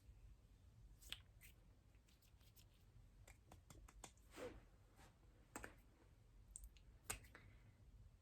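Faint, scattered wet mouth clicks and lip smacks made close to the microphone for ASMR, about a dozen short clicks at uneven intervals.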